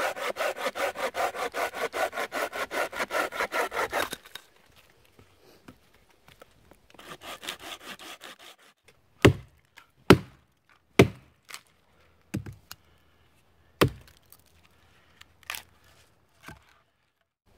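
Bahco Laplander folding saw cutting a dead branch in fast, even back-and-forth strokes for about four seconds, then a shorter, quieter bout of sawing. After that a hatchet strikes and splits the wood in about seven sharp separate chops, roughly a second apart.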